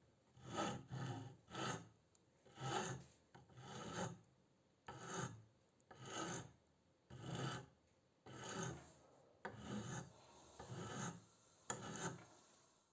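Repeated rasping hand strokes, about one a second, a dozen in all, of a tool or abrasive worked back and forth over a surface during restoration of an old hand plane.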